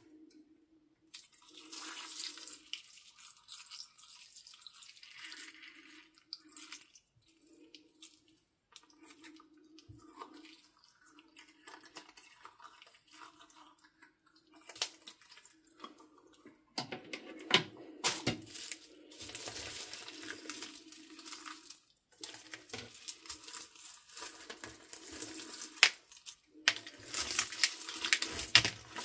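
Slime being squeezed and kneaded by hand: wet squishing and crackling with small clicks from the beads and crunchy add-ins mixed into it. It is quieter and comes in short patches at first, as a clear-slime balloon is squeezed out, then gets louder and busier about halfway through as the hands work the whole mix.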